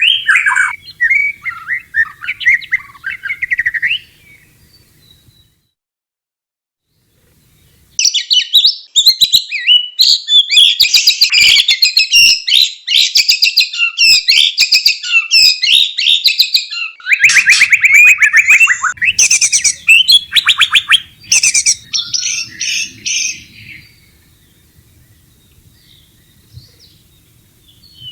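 White-rumped shama song: quick whistled phrases mixed with fast dry rattling calls, the calls of a shama in breeding condition. The song breaks off for a few seconds about four seconds in, returns loud and dense, and fades out near the end.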